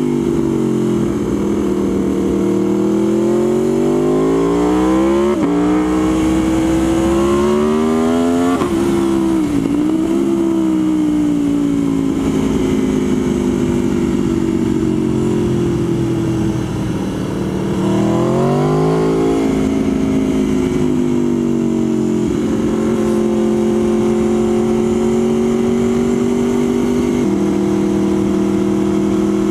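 Motorcycle engine pulling through the gears: its pitch climbs and drops sharply at each upshift, about five and eight and a half seconds in, eases off near seventeen seconds, climbs and shifts again around nineteen seconds, then holds a steady cruise.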